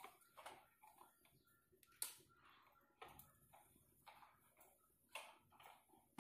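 Near silence with faint scattered clicks and taps; one sharper click about two seconds in.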